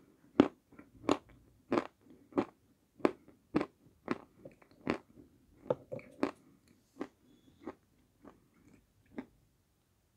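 Close-up crunching and chewing of dry edible clay chunks in the mouth: a steady run of sharp crunches, about one and a half a second, growing fainter and stopping shortly before the end.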